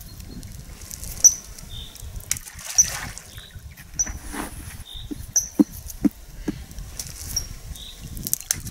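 A small bird giving short, high chirps over and over, roughly every second or so, with a few small water plops and drips in between.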